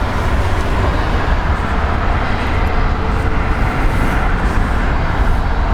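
Steady jet airliner engine noise: an even low rumble with hiss above it, unchanging throughout.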